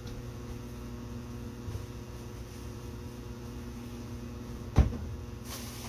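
Steady low electrical hum, with a single sharp knock about five seconds in and a short rustle just before the end.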